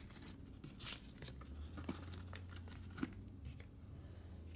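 Paper banknotes and a holographic cash envelope rustling and crinkling as bills are slid in and the envelope is handled, with a few short sharp rustles.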